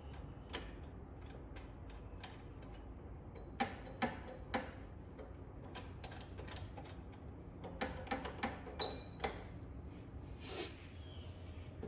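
Scattered clicks and light knocks of hand tools and metal parts during work on a motorcycle's wheels, with a short metallic ring about nine seconds in.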